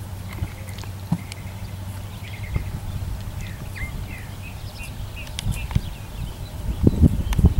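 A mule's hooves stepping over and knocking against wooden ground logs, with a few sharp knocks near the end. Birds chirp in the background over a steady low hum.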